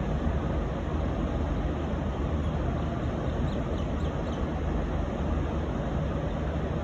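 Steady low rumble of the departing V/Line A class diesel locomotive A66, with no horn sounding. A few faint short high chirps come about halfway through.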